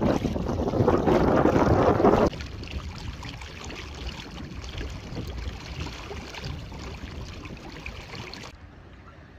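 Wind buffeting the microphone on an open boat, loud for the first two seconds and then cutting off abruptly, followed by lighter wind noise that drops again near the end.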